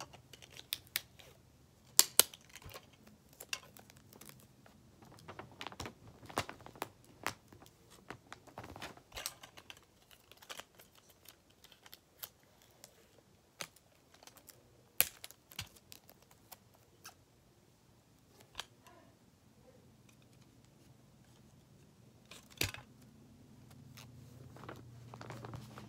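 Irregular sharp clicks, snaps and crinkles of clear tape and paper being handled, as a paper squishy is wrapped in tape.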